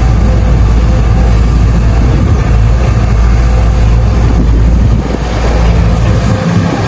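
Heavy diesel engines of a dump truck and excavator running loud and steady, with a brief dip in level about five seconds in.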